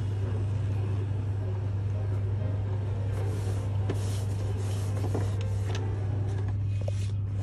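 Brother ScanNCut SDX1200 cutting machine running a scan: its motor feeds the cutting mat, with a piece of leather on it, steadily through the rollers.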